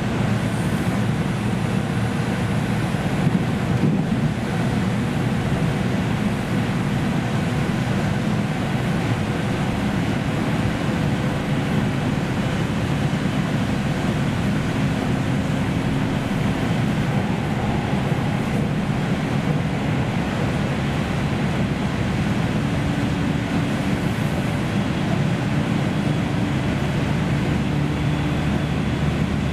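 Cabin running noise of a JR Central 313-series electric train, heard inside motor car KuMoHa 313-5006 while under way: a steady rumble of wheels on rail and running gear, with faint steady tones over it.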